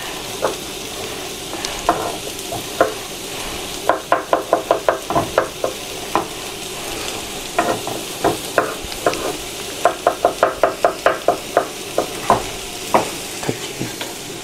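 Kitchen knife dicing champignon mushrooms into small cubes on a wooden cutting board. It makes runs of quick knocks, about six a second, with short pauses between, over a steady sizzle of food frying in a pan.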